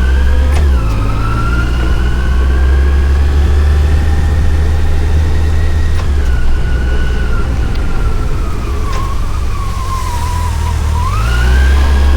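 Yamaha FJR1300's inline-four engine under way: its pitch rises after a quick dip just after the start, sinks slowly as the bike slows, then rises again near the end as it picks up speed. A strong low rumble runs underneath.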